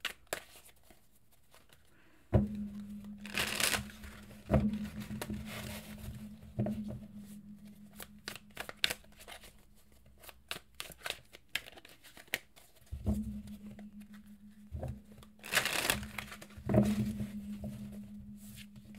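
A deck of tarot cards being shuffled by hand: soft card slaps and rustling, with two louder rustling bursts about three and a half seconds in and again about twelve seconds later.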